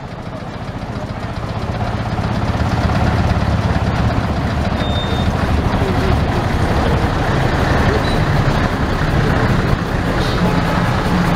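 Engine of a vintage truck running as it drives off at low speed, a low steady drone that grows louder over the first few seconds and then holds.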